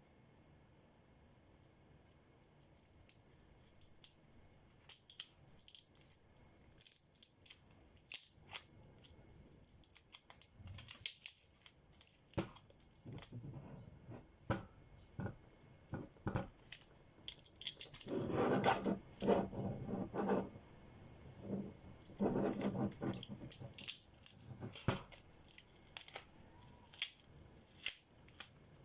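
Hands working on an Airdog drone battery pack: scattered small clicks and scrapes, with two longer noisy stretches of handling, each about two seconds, around two-thirds of the way through.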